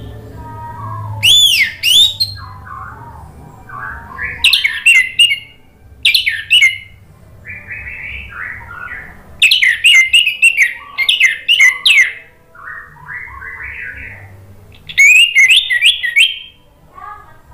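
Orange-headed thrush (anis merah) singing in loud spells of rapid, sweeping high whistles, about five times. Between them it gives quieter, lower warbled phrases.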